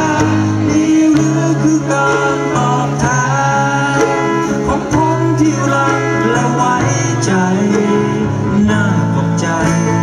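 Live band music: acoustic guitars strumming while a man sings the melody into a microphone.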